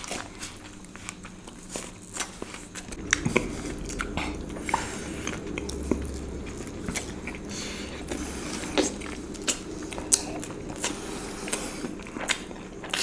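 Close-up eating sounds of Indian sweets: chewing and biting with irregular mouth clicks.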